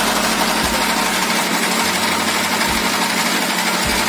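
Small motorboat's engine running steadily under way, a constant loud drone.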